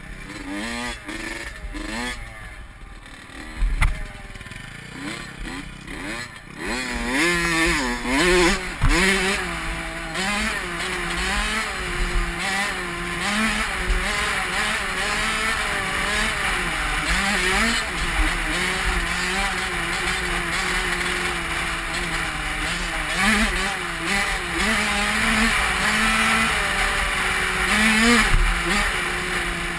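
Dirt bike engine heard from the rider's helmet: it runs at lower revs for the first few seconds, then speeds up about six or seven seconds in and keeps running, its revs rising and falling with the throttle under a steady rush of noise.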